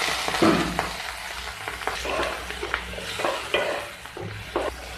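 Chopped onion, ginger, garlic, green chillies and tomato sizzling in hot oil in a nonstick kadai. A wooden spatula stirs them, with scattered scrapes and knocks against the pan.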